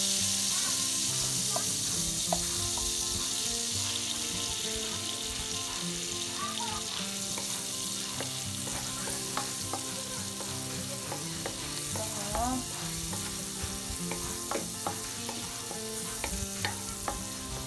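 Minced garlic sizzling in melted margarine in a wok on low heat, stirred with a wooden spatula, with scattered sharp taps and scrapes of the spatula against the pan.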